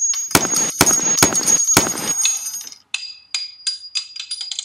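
Gunshot sound effects: four sharp shots about half a second apart, each with a ringing tail. Then a run of lighter metallic clicks and pings that comes faster and faster toward the end.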